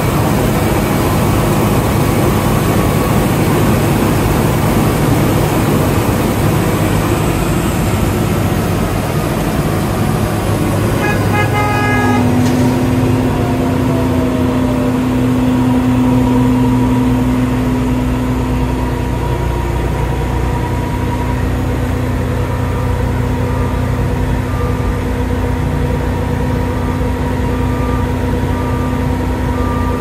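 Heavy road-construction machinery running loudly at a cold-milling job. A short horn toot sounds about twelve seconds in, followed by a steady drone, and a reversing alarm beeps at a regular pace near the end.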